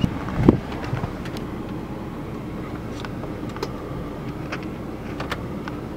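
Car driving, a steady low rumble of engine and road noise heard from inside the cabin, with one short knock about half a second in.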